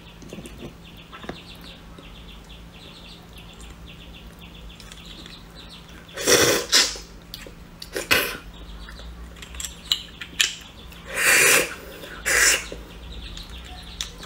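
A person slurping and sucking marrow out of a beef marrow bone: four loud wet slurps in the second half, two of them about half a second long.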